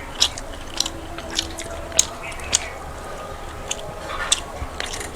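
Close-up eating sounds: chewing with sharp, wet mouth smacks and clicks, irregular, roughly one every half second to a second.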